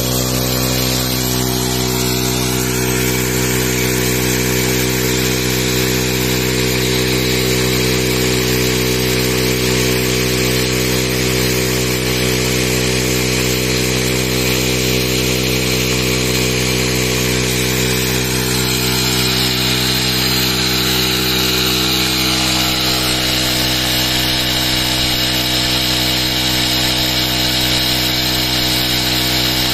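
Honda CD 70 motorcycle engine, a small single-cylinder four-stroke, running steadily at constant speed as it belt-drives a tubewell pump, with water gushing from the outlet pipe into a concrete tank.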